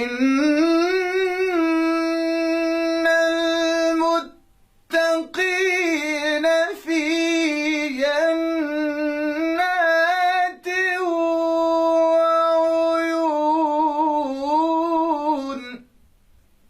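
A man chanting the Quran in melodic tajweed style, unaccompanied. He holds long notes with ornamented turns in three phrases, pausing for breath about four seconds and ten seconds in.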